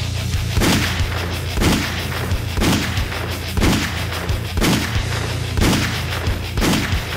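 Gunshot sound effects, one about every second, seven in all, over a steady low rumble.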